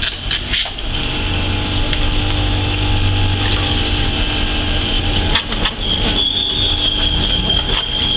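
Electric fish scaling machine running: a steady motor hum with scattered clicks and rattles. A high steady whine comes in about six seconds in.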